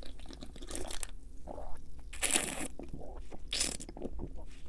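Close-miked mouth sounds of a man sipping and tasting red wine: several short hissy slurps and breaths, the loudest about two seconds in, with small wet mouth noises between them.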